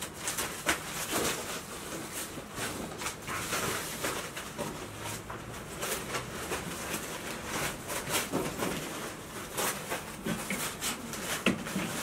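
Golden retriever puppies rooting through and tugging at shredded paper: irregular rustling and crinkling.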